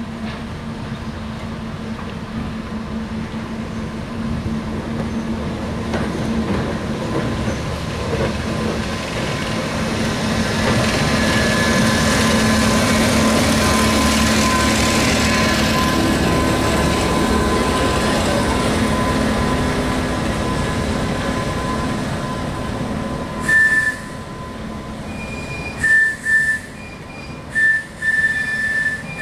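British Railways Class 10 diesel shunter passing at low speed with its engine running steadily, growing louder as it comes level and fading a little as the coaches roll past. Near the end, several short high-pitched squeals break in.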